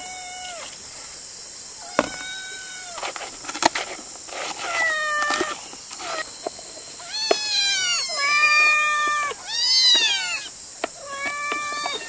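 Domestic cats, an adult and a kitten, meowing repeatedly for food. Short calls come every second or two and crowd together and overlap in the middle, with a few light clicks in between.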